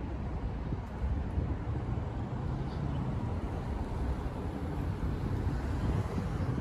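City road traffic: a steady low rumble of cars driving past.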